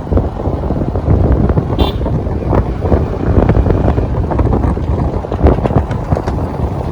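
Heavy wind noise on the microphone over road traffic. A short vehicle horn toot about two seconds in.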